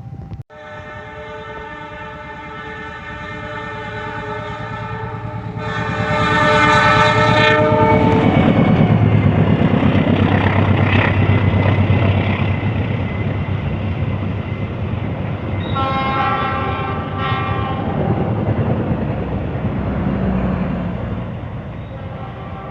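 Diesel locomotive horn sounding a long chord, getting louder, as the train approaches. The train then passes with a heavy engine and wheel rumble. Two shorter horn blasts come partway through the pass, and the rumble eases off near the end.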